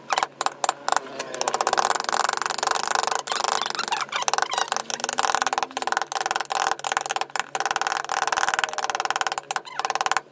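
Wooden mallets striking wood-carving chisels in quick, irregular taps from two carvers working at once, the chisels cutting into a block of wood.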